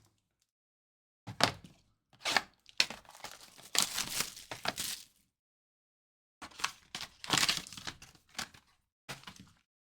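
Trading-card packaging being torn open and crinkled, in two spells of crackling with sharp snaps: the first about a second in, the second about halfway through.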